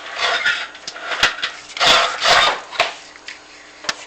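Chimney inspection camera and its push rod scraping and knocking against the clay flue tile liner as it moves down the flue: irregular scraping rubs with a few sharp knocks.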